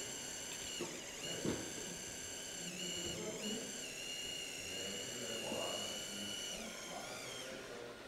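Electric motor and gearbox of a radio-controlled scale model vehicle whining at a steady high pitch, dipping and recovering as it is throttled a few times, then dying away near the end.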